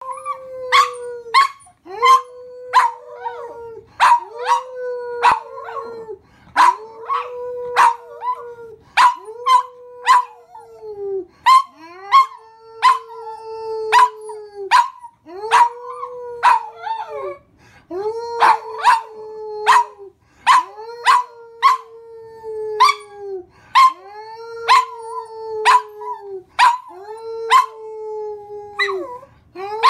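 A small black-and-tan dog howling and giving sharp, short yips in a repeating cycle about every two seconds, over long held notes that dip in pitch at the end of each.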